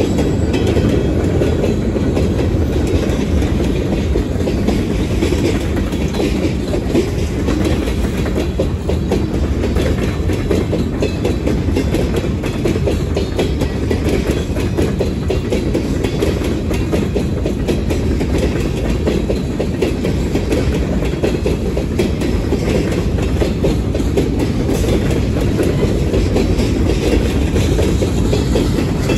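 A freight train's cars rolling past: a steady rumble of steel wheels on the rails, with a constant patter of clicks from the wheels over the rail joints.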